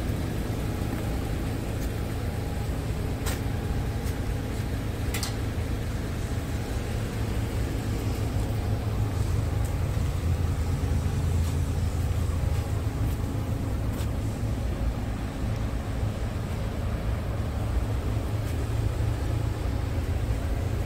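Scania G450 tractor unit's diesel engine idling steadily, a low even rumble, with a few light clicks about 3, 5 and 14 seconds in.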